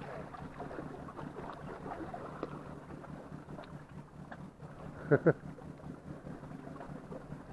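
Faint steady low hum with hiss. A short two-syllable call from a voice about five seconds in.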